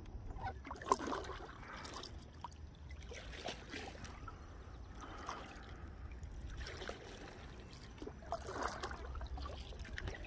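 Water trickling and splashing around a kayak, in repeated bursts about every one and a half to two seconds, over a low rumble of wind on the microphone.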